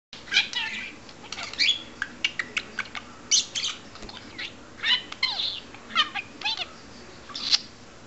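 White budgerigar chattering: a rapid, uneven run of short chirps, clicks and quick rising and falling whistles.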